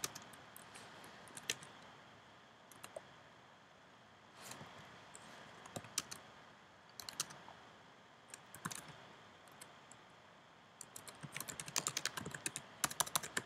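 Typing on a computer keyboard: scattered single keystrokes with pauses between them, then a quick run of keystrokes near the end.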